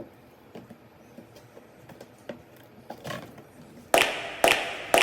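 Faint scattered clicks and taps, then about a second before the end loud, evenly spaced hits about half a second apart, each ringing out, as background music begins.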